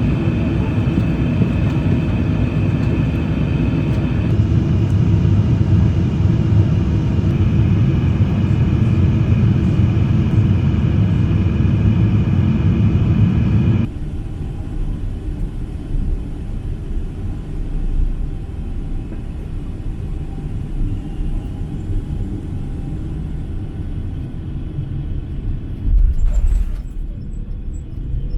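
Boeing 777-300 cabin noise: a steady rumble of engines and airflow, which drops abruptly about halfway through to a quieter rumble, with a short louder noise near the end.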